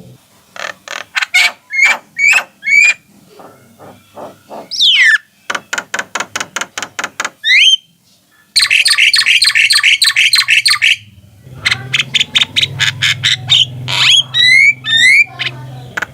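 Javan mynas singing: rapid trains of sharp, rattling notes broken by short rising whistles, phrase after phrase, with a low hum under the second half.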